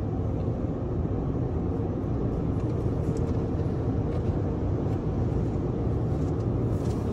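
Steady low rumble of a tunnel car wash heard from inside a pickup's closed cab, with a faint patter of water spray hitting the windshield.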